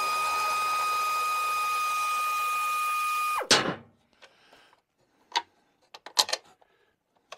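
Hand-held power tool running at a steady high whine, winding down with a drop in pitch about three and a half seconds in; a few light metal clinks follow.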